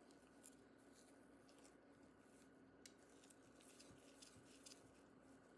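Near silence: faint small clicks of a precision screwdriver turning the tiny screw that holds a laptop's M.2 SSD, over a low steady hum.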